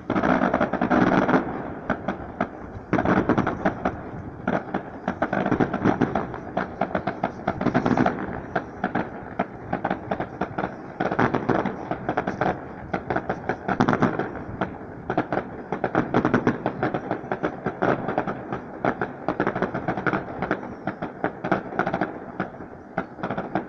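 Fireworks display going off: a continuous run of bangs and crackles in quick succession, with louder clusters every few seconds.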